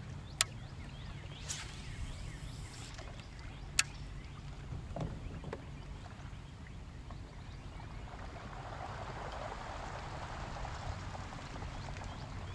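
Quiet open-water ambience from a fishing kayak: water lapping at the hull over a low steady rumble, with two sharp clicks about three seconds apart near the start.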